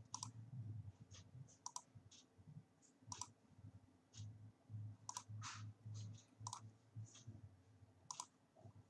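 Computer mouse buttons clicking: about a dozen short, sharp clicks at irregular intervals, some in quick pairs, as lines are drawn point by point in a CAD sketch. A faint low hum runs underneath.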